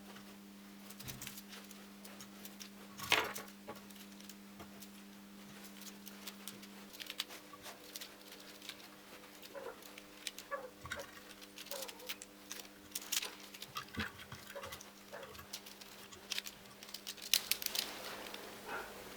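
Scattered light clicks and taps of small objects being handled, over a faint steady hum that gets quieter about seven seconds in.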